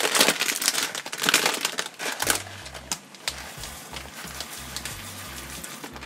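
A plastic rice packet crinkling and rustling as it is handled and opened, densest in the first two seconds. About two seconds in, a quiet bass-heavy music track starts underneath.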